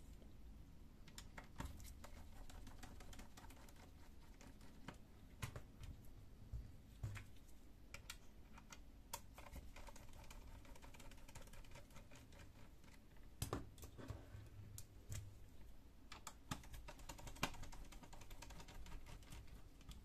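Faint, irregular clicks and ticks of a small screwdriver turning out the screws on the back edge of an Asus K50-series laptop, with light handling of its plastic case.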